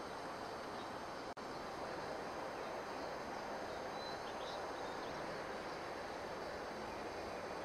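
Steady outdoor background noise with a brief dropout about a second and a half in, and a few faint high chirps near the middle.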